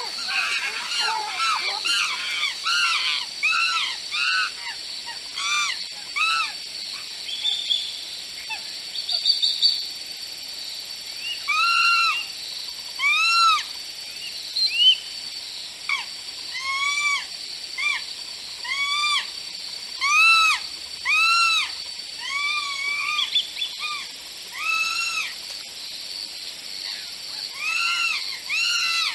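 A long series of short whistled animal calls, each rising and then falling in pitch, coming roughly once a second over a steady high hiss. The calls are more crowded and overlapping in the first few seconds.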